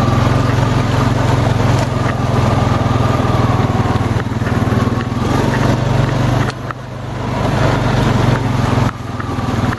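Honda Rancher ATV's single-cylinder engine running under load while riding. The engine note drops about two-thirds of the way through, builds back up, then eases off again near the end.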